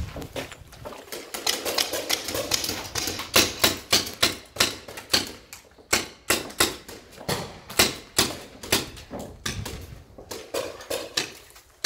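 Paintball markers firing: an irregular string of sharp pops, several a second at times.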